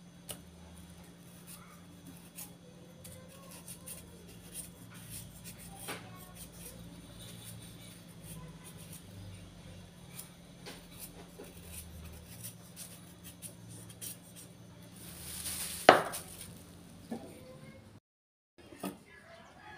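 Kitchen knife scraping the skin off a raw carrot in faint, repeated scrapes and ticks over a steady low hum. A little before the end, a short rising rustle ends in a single loud knock.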